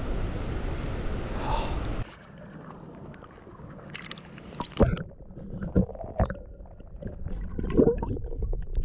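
A steady rushing noise for about two seconds, then, after an abrupt cut, quieter scattered knocks and watery gurgles.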